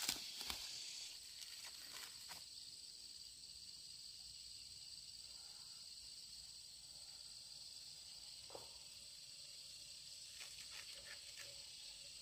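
Insects chirring steadily on two high pitches, with a few light clicks and knocks in the first couple of seconds and again near the end.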